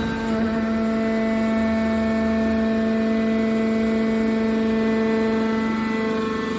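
Hydraulic scrap metal baler's power unit running with a steady, even hum.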